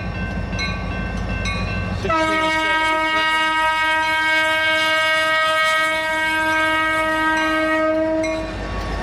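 Grade-crossing bell dinging about twice a second. About two seconds in, the lead diesel locomotive's air horn starts one long blast, held for about six seconds. Locomotive rumble is heard once the horn stops.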